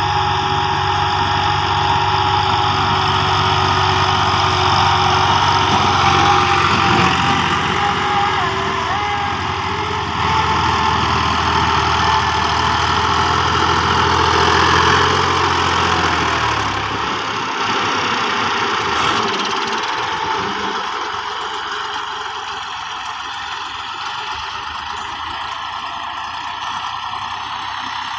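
Diesel farm tractor engines running under load while pushing and levelling sand. The nearest tractor's low engine note is loudest around the middle, then drops away after about seventeen seconds as it moves off, leaving a fainter steady engine sound.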